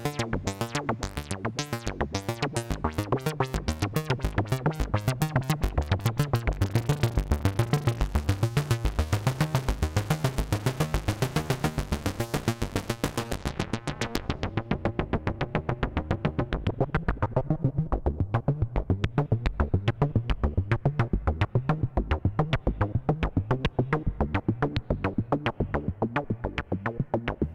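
Eurorack modular synthesizer built from the Erica Synths Polivoks DIY bundle playing a fast sequencer-triggered pattern of short enveloped notes through the Polivoks filter, with white noise mixed in. About halfway through the bright hiss on top drops away and the sound turns duller.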